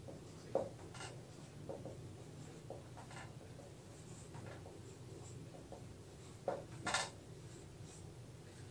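Marker pen writing on a whiteboard: faint scratching strokes of the tip against the board, with a few louder strokes near the end.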